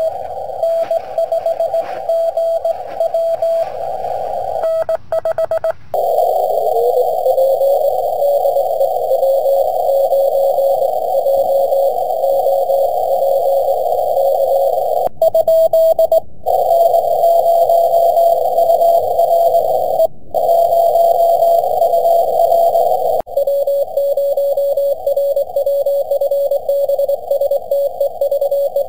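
Morse code (CW) heard through a ham radio receiver's narrow filter: a keyed tone sends dots and dashes over band hiss. About six seconds in, the tone glides up in pitch as the receiver is tuned onto another station, and the signal drops out briefly a few times.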